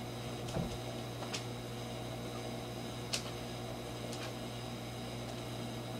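Steady low electrical hum with a faint hiss, broken by a few faint clicks, one about a second in and one at about three seconds.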